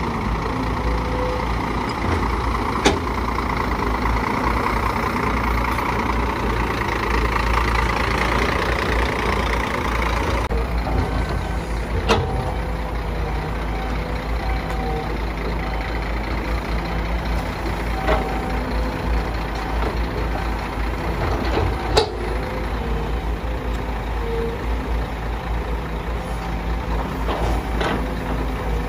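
Heavy diesel engines of a CASE CX210B excavator and Scania dump trucks running steadily while the excavator loads soil into a truck bed, with a few sharp metal knocks, the loudest about two-thirds of the way through, and short intermittent beeps in the second half.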